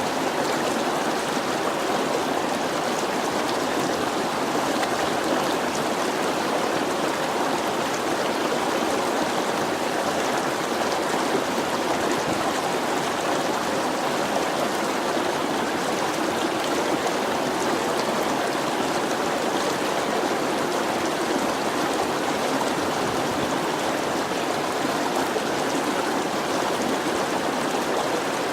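A stream of running water flowing and splashing steadily.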